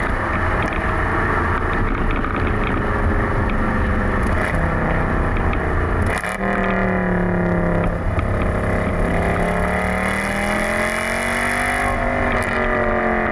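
Mercedes-Benz C63 AMG (W204) naturally aspirated 6.2-litre V8, on a Stage 2 map with the secondary catalysts deleted, running through its exhaust while driven. About six seconds in the note breaks briefly, then settles into a clearer, steady drone that slowly rises in pitch toward the end.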